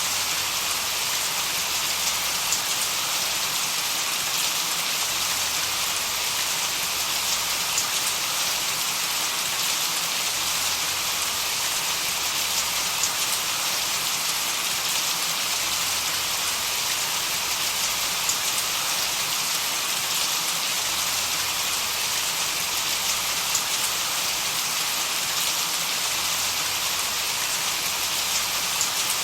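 Steady, even hiss of rain, strongest in the high end, with faint scattered ticks of drops.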